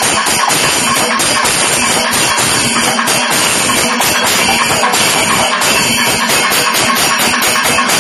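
Kerala panchavadyam temple ensemble playing at full volume: dense, rapid timila and maddalam drum strokes under steady clashing of ilathalam cymbals, in the idakalam (middle-tempo) stage of the performance.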